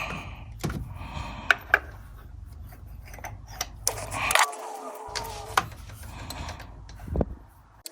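Scattered light clicks and clinks of hand tools and engine parts being handled, over a low steady hum.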